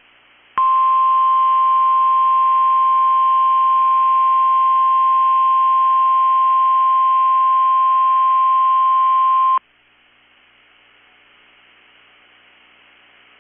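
NOAA Weather Radio 1050 Hz warning alarm tone: a single steady tone held for about nine seconds, then cut off suddenly, leaving faint radio hiss. The alarm is sounded as the weekly test of the warning system.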